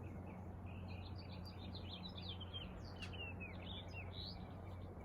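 Small birds chirping and twittering in quick, repeated short notes, over a steady low hum.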